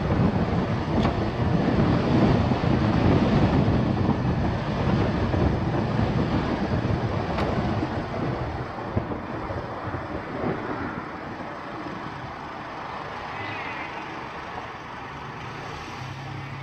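Road and wind noise of a car driving on the highway, louder for the first several seconds and then easing off.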